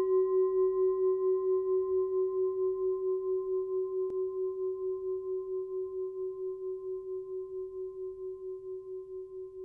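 A meditation singing bowl, struck just before, rings on with one clear low tone and a fainter higher one, slowly fading, with a steady wavering pulse in its sound. A faint click about four seconds in.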